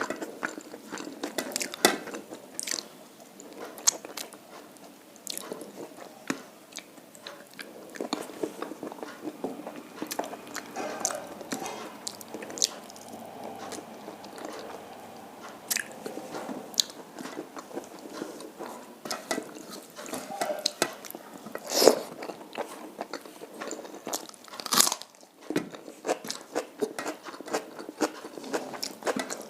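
A person eating close to the microphone: irregular chewing and crunching with many sharp mouth clicks, and two louder snaps late on.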